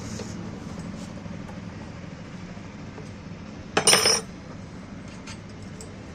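Metal tools or grinder parts clinking and clattering against each other on a workbench, one loud jangle about four seconds in, over a steady low hum.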